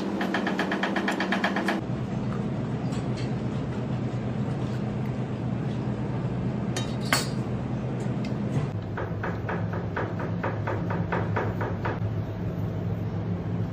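Kitchen work: quick, even runs of light knocks and clinks from utensils on a metal tray and cutting board, with one sharper knock in the middle, over a steady low hum that changes pitch twice.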